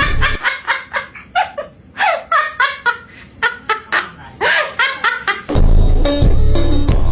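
A bird giving a run of quick, pitched, chattering calls that sound like laughter, several a second with some swooping up or down. Music with a heavy bass beat plays under it at the start and comes back near the end.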